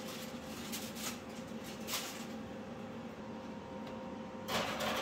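Aluminium foil crinkling in a few short rustles as it is peeled off a roasting pan, then near the end a louder scrape as the pan slides onto the oven's wire rack, over a faint steady hum.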